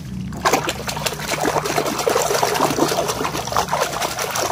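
Water splashing and sloshing as a hand swishes a small toy back and forth through it to wash the mud off. The splashing starts about half a second in and keeps up, busy and irregular.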